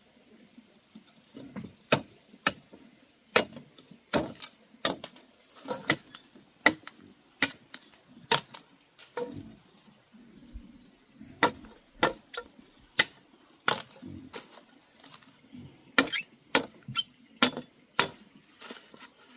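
A blade chopping plant stalks in sharp, irregular strokes, one or two a second, with a short pause about halfway through.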